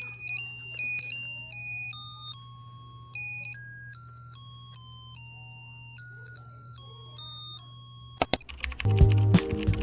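Background music: a simple, high-pitched electronic melody of single clear notes, like a ringtone or music box. Near the end a couple of clicks are heard, and a fuller, louder track with a beat starts.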